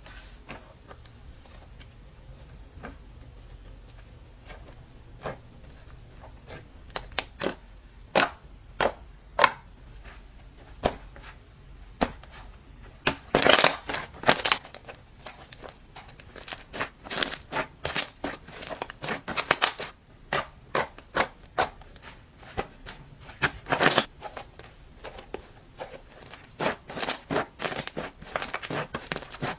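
Slime being squished and pressed by hand as clay is mixed into it, giving irregular sharp crackling clicks and pops. They are sparse at first and come in quicker clusters from about halfway through.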